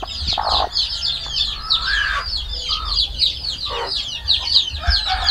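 Chickens clucking in short calls every second or so, among them a broody hen sitting on her nest, disturbed and a bit angry. Under the clucks runs a dense chorus of rapid high chirps.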